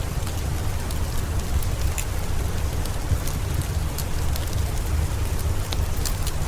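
Steady rain over a low rumble, mixed with scattered sharp crackles from a wood fire in a fireplace.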